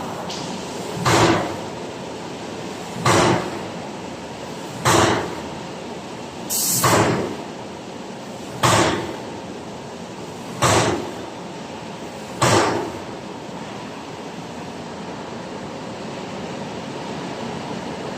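Whitney 4400 CNC turret punch press cycling: seven short, loud strokes about two seconds apart over a steady machine hum, then only the hum for the last five seconds or so.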